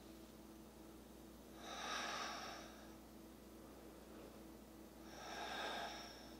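A woman's faint, slow breaths while she holds a yoga pose: two long breaths, each over a second, about three seconds apart.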